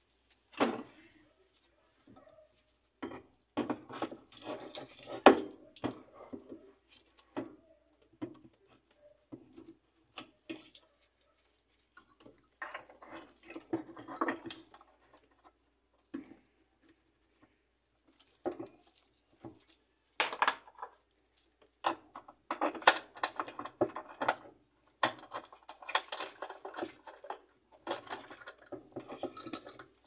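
Metal parts clinking, scraping and rattling in irregular bursts, with a few sharp knocks, as a replacement washing-machine motor is handled and fitted into its mounting by hand.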